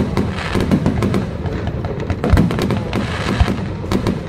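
Aerial fireworks display: shells bursting in quick succession, a dense run of booms and crackles with many sharp bangs close together.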